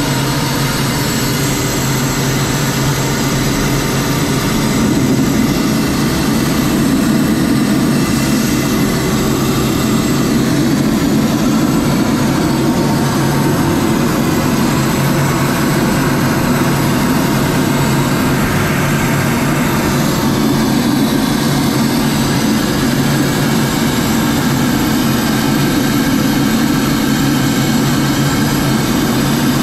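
Steady in-flight cockpit noise of an aircraft: engine and airflow heard through the canopy as an even rushing noise over a low, steady drone.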